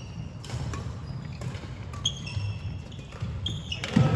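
Badminton shoes squeaking in short high chirps on a wooden sports-hall floor and sharp clicks of rackets striking shuttlecocks, over a steady low hum of wall fans. A loud thump comes near the end.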